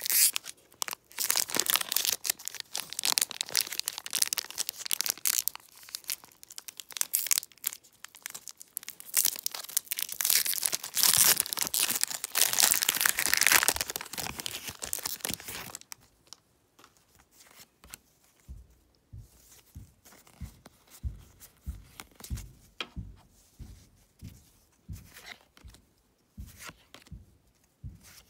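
A foil Pokémon booster pack wrapper being torn open and crinkled: loud crackling and tearing for about the first sixteen seconds. After that, quieter soft taps and slides, roughly one a second, as the trading cards are flipped through one by one.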